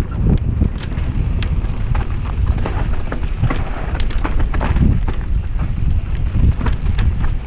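Wind buffeting the helmet-mounted camera's microphone as a mountain bike descends a rocky dirt trail at speed, with a heavy uneven rumble. Irregular sharp clicks and rattles come from the bike jolting over rough ground.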